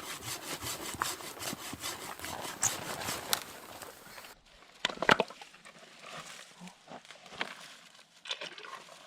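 Hand saw cutting through wood with quick, even strokes, which stops abruptly about four seconds in. After that come a few sharp snaps and light knocks of wood and brush.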